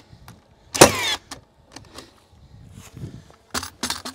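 Cordless framing nailer firing into the sill plate: a sharp shot about a second in, followed by the short whir of its motor re-cocking. Two lighter clacks come near the end.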